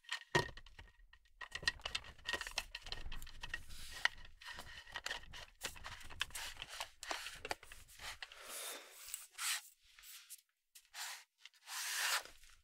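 Handling noise of a Neewer NW-088 boom pole's aluminium tube sections and plastic knuckle and compression ring: irregular clicks, scrapes and rattles as the pieces are turned and pushed together.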